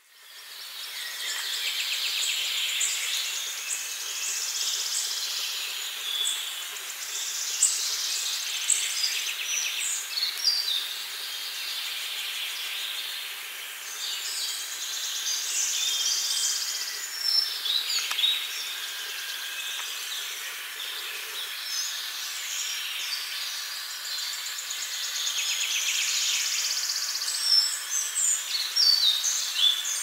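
Woodland songbirds singing: several birds overlap in quick chirps, whistles and trills over a steady high hiss. The sound fades in at the start.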